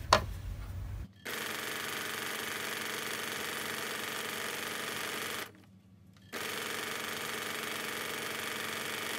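Electric sewing machine running steadily as it stitches a seam. It stops for under a second about halfway through, then starts up again.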